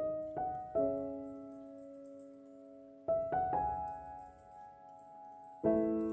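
Background piano music: slow notes and chords struck in small groups, each left to ring and fade, with pauses of a couple of seconds between the groups.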